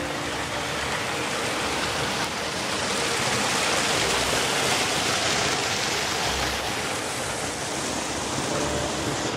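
Small woodland stream rushing over a low cascade of stones, a steady noise of running water that grows a little louder in the middle.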